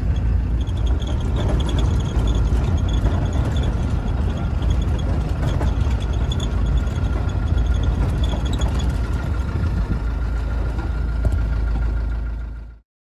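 Cab noise inside an old ex-military FFR Land Rover driving on a dirt track: a steady engine and drivetrain drone with tyre and rattle noise and a faint steady whine over it. It cuts off suddenly near the end.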